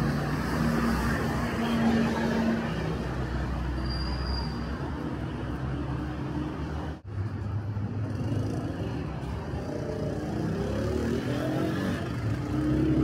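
City street traffic: car engines running and vehicles passing steadily. The sound cuts out for an instant about seven seconds in.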